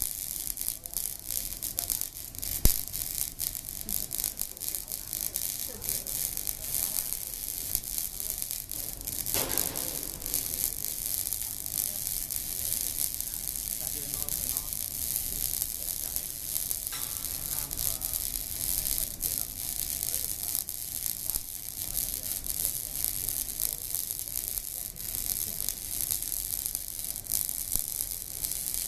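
Electric arc welding: a continuous crackling sizzle from the arc, with dense fine crackles and a sharp pop about two and a half seconds in.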